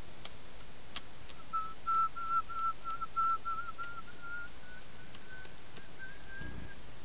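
A person whistling a string of short notes at one fairly steady pitch, which creeps slowly upward toward the end. There are a couple of faint clicks near the start.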